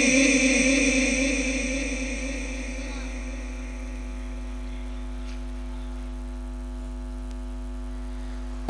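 Sound-system tail of the qari's held recitation note, fading over the first few seconds into a steady pitched tone with overtones, over a constant mains hum.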